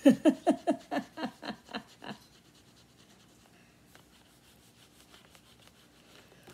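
A woman's short laugh, a quick run of about ten falling pulses that fades out over two seconds. It is followed by faint scratching of a coin on a scratch-off card.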